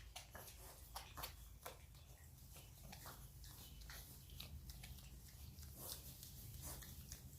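Piglets chewing food, heard as faint, irregular crunches and clicks.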